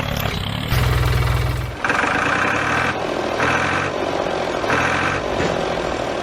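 Tractor engine running steadily, with a strong low buzz near the start and then a higher tone repeating about every second and a half.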